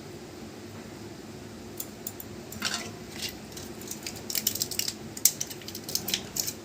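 A run of small sharp clicks and light clatter from hands handling small objects, starting about two seconds in and growing busier, over a steady low hum.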